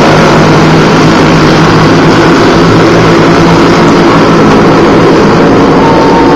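A pack of dirt-track racing kart engines running hard together as the karts lap the clay oval. It is a loud, steady drone of many overlapping engine notes.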